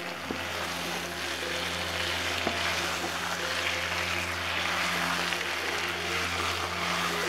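Chicken pieces sizzling in hot oil in a wok as they are stirred with a wooden spatula, with a couple of light spatula taps. A steady low hum runs underneath.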